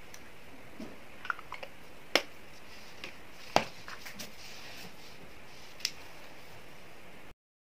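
A few sharp clicks and light taps from a plastic cosmetics tube and its paper box being handled and set down on a table, with a little soft rustling, over a steady hiss. The sound cuts off abruptly near the end.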